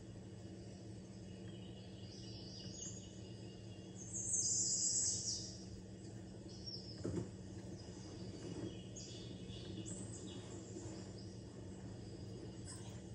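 Faint bird chirps and twitters from a bird video playing through a television's speakers, loudest about four to five seconds in, over a steady low electrical hum. A short soft knock comes about seven seconds in.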